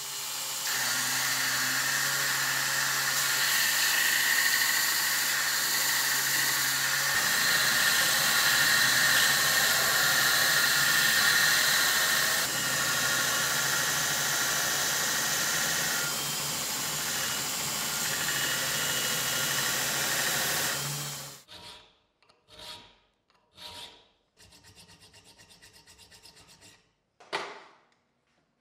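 Belt grinder running with a steady motor hum while its narrow abrasive belt grinds a Damascus steel knife blade. The grinding stops suddenly about three quarters of the way through. Short, quieter scraping and knocking sounds follow.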